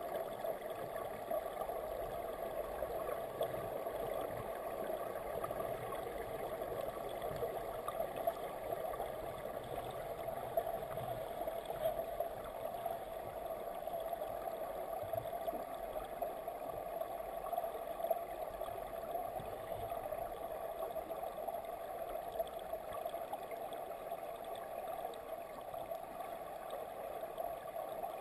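Steady, muffled rush of flowing stream water heard through a submerged camera.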